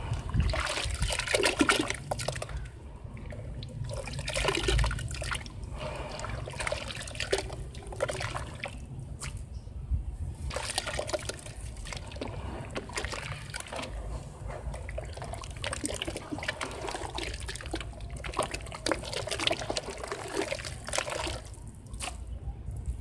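Hands squeezing and kneading wet sand in a plastic tub of muddy water: wet squelching and sloshing that comes in repeated bouts of a second or two.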